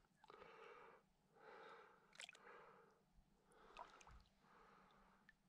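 Faint, slow breathing in a steady rhythm of soft swells, with a few small clicks.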